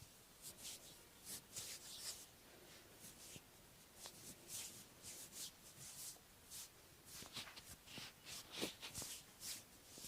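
Faint, irregular swishes of hands rubbing and sliding over bare skin in a back massage, several short strokes a second with brief pauses between.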